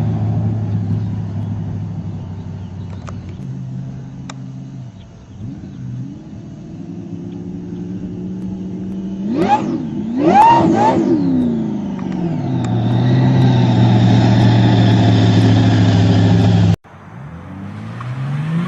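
A car engine idling, then blipped twice in quick succession. It is held at higher revs with a steady high-pitched whine over the engine note, the whine of a turbocharger or supercharger. The sound cuts off abruptly near the end and another engine starts rising in revs.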